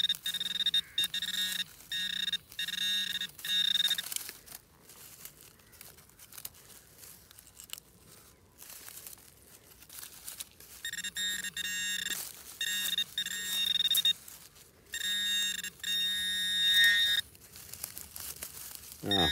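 Handheld metal-detecting pinpointer beeping in rapid, evenly pulsed bursts as it is worked through the loose soil of a dig hole, signalling a metal target close by: a brass shotgun cartridge head. The beeping stops for several seconds in the middle, then comes back in bursts.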